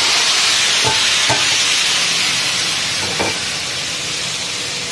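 Hot-oil baghar of fried onions sizzling as it hits the pot of haleem, loud at first and slowly dying down. A few light knocks sound over the sizzle.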